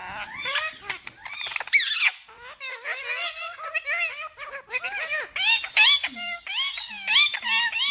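Several ringneck parakeets chattering and squawking over one another, shouting out mimicked words and phrases in high, squeaky voices.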